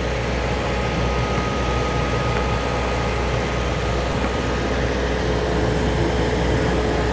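A steady engine drone with an even outdoor noise. Nothing starts, stops or changes.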